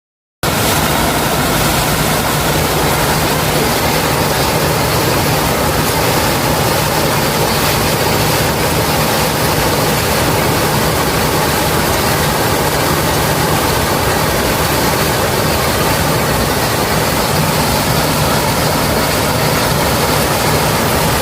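Waterfall: a loud, steady rush of falling water that starts abruptly about half a second in.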